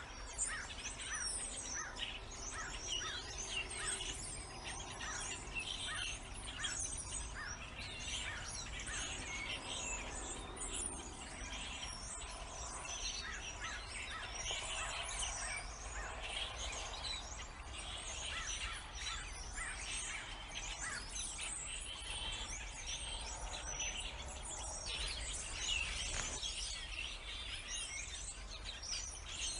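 A dense chorus of many birds chirping and singing, with short overlapping notes in a constant stream.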